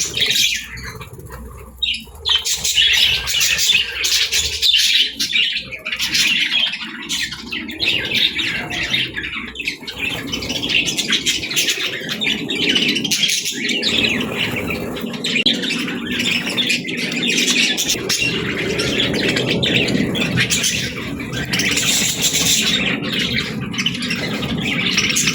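Pet parrots chattering and squawking together, a dense, continuous run of overlapping chirps and calls that starts abruptly.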